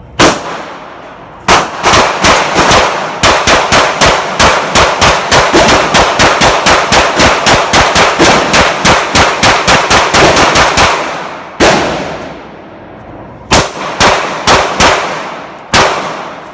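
Rapid 9mm semi-automatic gunfire from a Glock 17 and a Masterpiece Arms Mac-11 pistol: a single shot, then a long fast string of shots at about five a second, each with a short echo, then a few single shots spaced about a second apart near the end.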